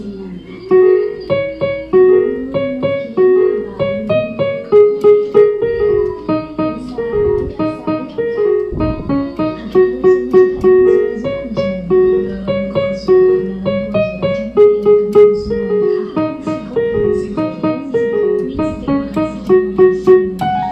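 Yamaha PSR-50 portable keyboard played with the fists, its piano voice sounding a simple rhythmic tune of short notes, several at a time. Many of its white keys are dead, so the tune is picked out on the black keys.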